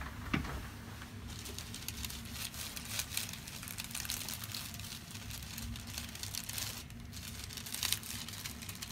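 Irregular crinkling and rustling from hands working on a patient lying on a chiropractic treatment table, with a steady low hum underneath.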